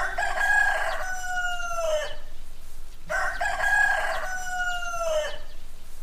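Rooster crowing twice, each crow about two seconds long and dropping slightly in pitch at its end; the second begins about three seconds in.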